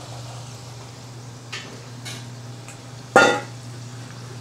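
Okra deep-frying in hot oil in an aluminium pan, a faint sizzle over a steady low hum. There are a few light metal clicks, then a little after three seconds a loud, ringing clank of a metal utensil striking the pan.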